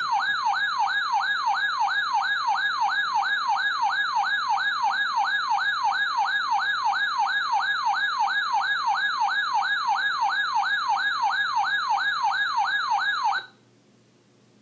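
Weather radio alert tone, a loud siren-like warble sweeping up and down a little over twice a second, that signals an incoming severe thunderstorm warning. It runs about thirteen seconds and cuts off suddenly, leaving faint hiss.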